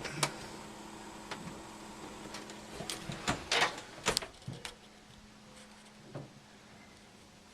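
Samsung DLP rear-projection TV powering up: a series of clicks and knocks, thickest a few seconds in, over a steady low hum.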